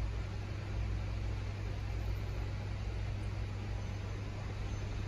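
Steady low hum with an even hiss over it, constant background noise of a running electrical appliance.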